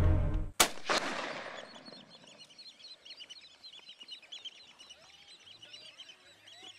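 A hunting rifle shot about half a second in, followed closely by a second sharp crack. Many birds then call together in short, high, arched calls that keep on throughout.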